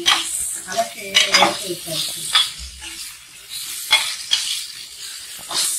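Metal ladle scraping and clinking against an aluminium pressure cooker while stirring brinjal, okra and green chillies sautéing in hot oil, with a light sizzle underneath. The clinks come irregularly, about eight in all.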